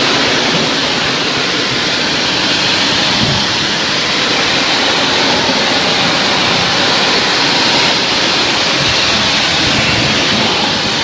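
Water spraying steadily onto an air conditioner condenser's coil during cleaning: a constant hiss of spray.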